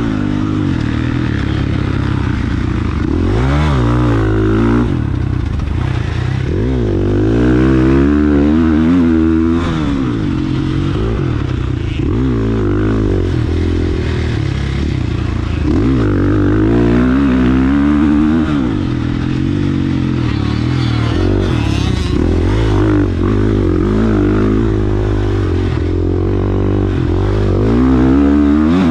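A 450 motocross bike's single-cylinder four-stroke engine under hard riding on a dirt track. It revs up and drops back over and over as the throttle opens and closes.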